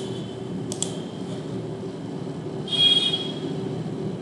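A steady low background hum with two sharp double clicks, one at the start and one just under a second in, typical of a computer mouse button pressed and released. About three seconds in comes a brief louder hissing burst with a high tone.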